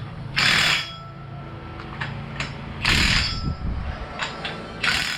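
Three short bursts of a power tool, each about half a second, with small tool clicks between them, as suspension bolts are run in on a UTV.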